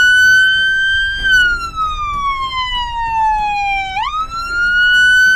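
Police car's electronic siren blaring from its front speaker in a wail pattern. The tone holds high, falls slowly for about three seconds, then jumps quickly back up about four seconds in and holds there.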